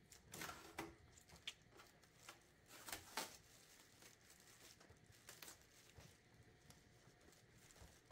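Faint crinkling and tearing rustles of protective tape being peeled off an appliance's housing, in short scattered bursts, the strongest about three seconds in.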